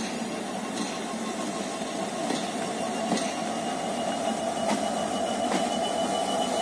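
Diesel locomotive engine running as it draws closer, slowly getting louder, with a few sharp clunks of wheels passing over rail joints.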